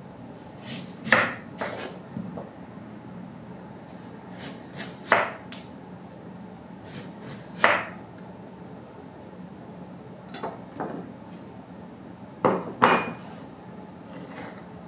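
Kitchen knife cutting a lemon on a wooden cutting board: separate sharp knocks of the blade meeting the board, a few seconds apart, with two louder knocks close together near the end.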